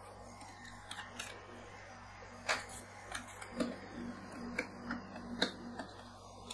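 Metal spatulas tapping and scraping on the frozen steel plate of an ice-cream-roll pan as the maple-syrup ice cream base is chopped and spread flat. Sharp, irregular clicks of steel on steel, the loudest about two and a half seconds in and again near five and a half.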